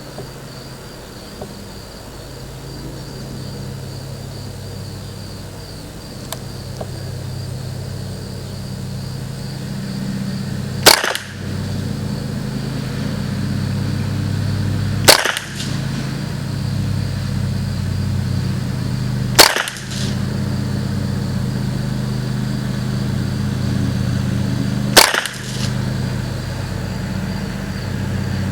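Four single .22LR rifle shots from a Ruger 10/22 firing CCI Standard Velocity ammunition, spaced about four seconds apart, the first about eleven seconds in. A steady low hum runs underneath.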